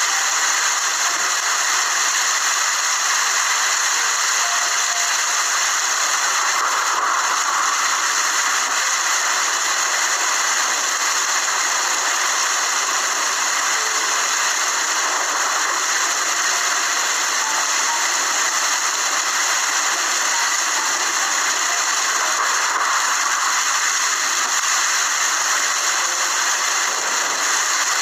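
Steady rainfall, an even hiss of falling rain without pause or change.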